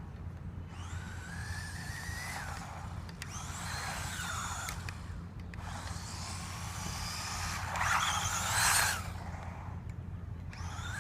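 Remote-control car's electric motor whining in several short bursts, each rising in pitch as the car speeds up and then dropping away. About eight seconds in there is a louder, rough burst of wheel noise.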